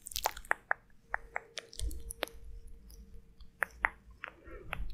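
Close-miked ASMR mouth sounds: a run of small, sharp, irregular clicks and pops, with a faint steady hum in the middle stretch.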